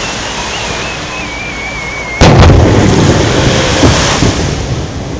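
A firework shell whistles as it climbs, a thin wavering whistle that slowly drops in pitch. About two seconds in, the shell bursts with a loud boom, and its rumble echoes and fades over the next couple of seconds.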